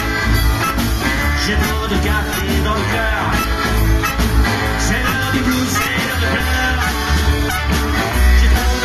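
Live band playing upbeat boogie-blues rock on amplified stage: trombone, saxophone, accordion, fiddle, guitars and drums over a strong steady bass beat.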